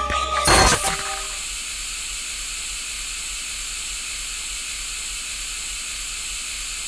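A loud burst of noise about half a second in cuts across the last notes of the music. Then steady TV static, an even hiss.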